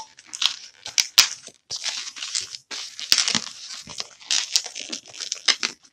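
A pink 260 latex modelling balloon being twisted and worked by hand: the rubber squeaks and rubs against itself in irregular bursts, with a few sharp clicks, as a bubble's end is twisted onto the ear twist.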